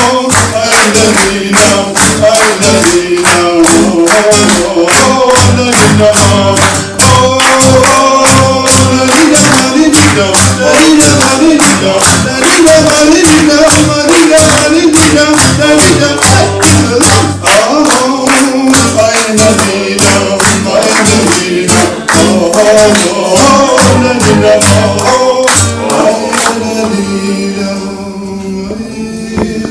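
A man singing with an acoustic guitar, with the audience clapping a steady beat along. The clapping stops about 27 seconds in, and the music goes on more quietly.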